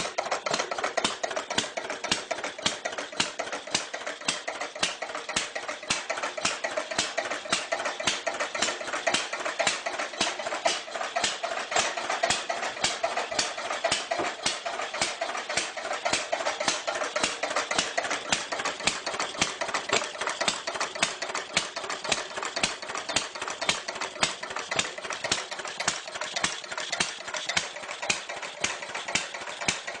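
Clunky old engine idling, with a rapid, even clatter of knocks that holds steady throughout.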